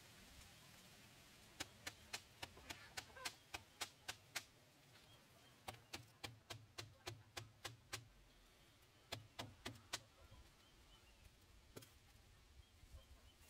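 Blade chopping in quick runs of sharp knocks, about four a second, three runs broken by short pauses and one last chop near the end.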